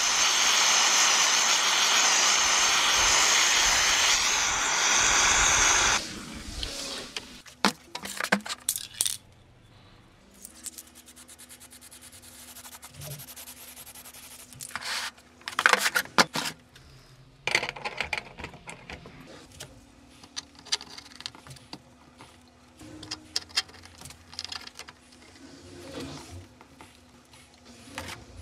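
An aerosol spray-paint can hissing in a long steady spray for about six seconds, then stopping sharply. After that come light metallic clinks, taps and rattles as steel forge parts and burner fittings are handled, with a brief cluster of clatter a little past halfway.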